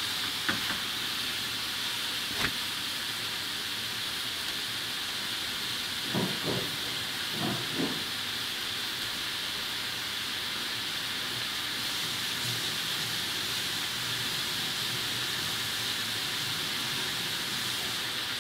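Food frying in a pan on the stove, a steady sizzle.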